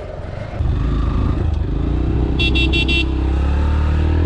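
Motorcycle engine running, its rumble rising suddenly about half a second in as the bike pulls away, then holding steady. A high-pitched horn gives four quick beeps about two and a half seconds in.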